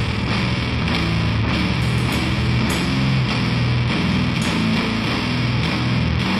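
Death metal music: distorted electric guitars playing a low riff of quickly changing notes, loud and continuous.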